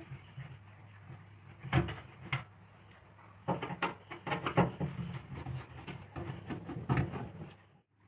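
Hand screwdriver backing screws out of a washing machine's plastic rear cover, with irregular clicks and short scraping rattles of metal on plastic.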